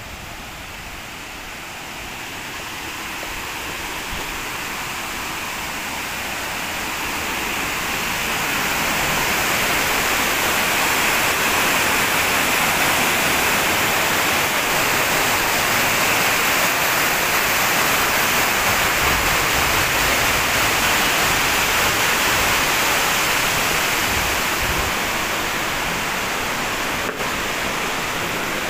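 Steady rush of flowing water, swelling over the first ten seconds or so and easing a little near the end.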